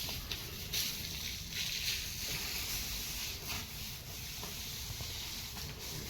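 Water splashing and hissing over buffaloes as they are washed, swelling about a second in, over a steady low rumble.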